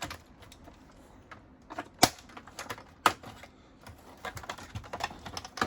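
Plastic snap-in clips of a Keurig Supreme Plus coffee maker's housing clicking and snapping as the panel is pried loose: scattered light clicks, with two sharper snaps about two and three seconds in and a quick run of small clicks near the end.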